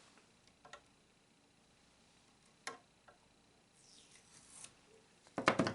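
Gloved hands handling a small plastic Command Strip picture hook and its adhesive strip: a few small clicks, a short rustle, then a louder burst of crackling clicks near the end.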